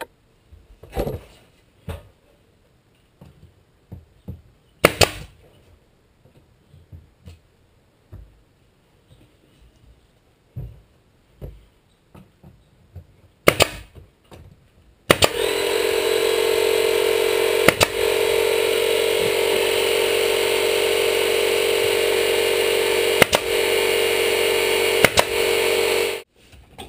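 A staple gun firing single staples into the plywood skin, a few sharp shots among small handling clicks. About fifteen seconds in a steady motor starts running, and more staple shots sound over it before the motor cuts off near the end.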